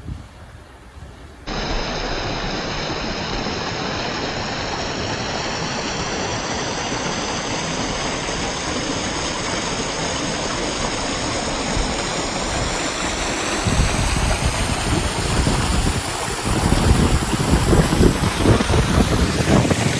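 Waterfall rushing: a steady wash of falling water that cuts in suddenly about a second and a half in, turning heavier and more surging in the last few seconds.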